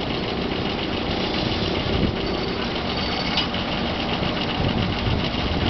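Steam engine running steadily while it powers a sawmill.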